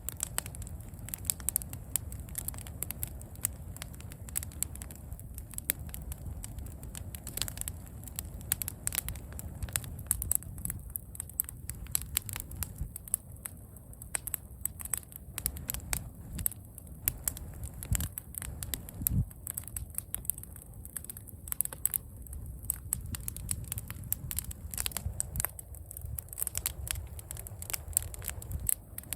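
Footsteps crunching and crackling over dry ground and brush, with many small sharp clicks and a low rumble of wind on the microphone.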